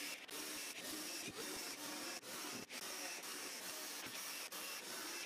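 Cordless drill-driver running in repeated spells, backing screws out of a plywood base plate: a steady hiss broken by brief dips.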